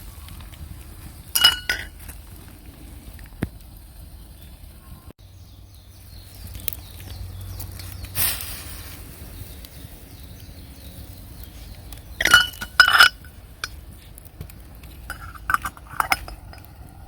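Cookware and utensils clinking at a campfire hearth, each clink with a brief ring. There are two clinks about a second and a half in, two louder ones about twelve to thirteen seconds in, and a few lighter ones near the end.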